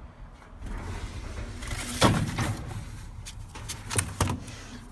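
Rummaging through cardboard and discarded store display pieces: a rustle with a sharp knock about two seconds in and a few quick clicks and knocks near the end.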